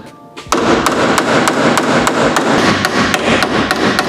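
Hammer striking the cut sheet-metal edge of a car's rear quarter panel in quick, even blows, about four a second, straightening out a curled edge. The blows start about half a second in.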